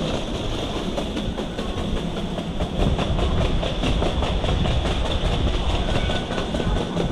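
Taipei MRT metro train running, heard on board: a steady loud rumble and rattle of the carriage on the rails.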